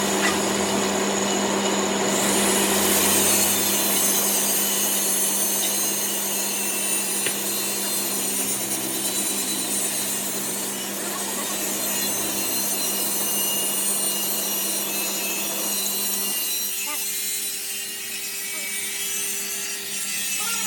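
A workshop power tool or machine running steadily: a motor hum under a rasping, hissing cutting or abrasive noise. The hiss brightens about two seconds in and thins out near the end.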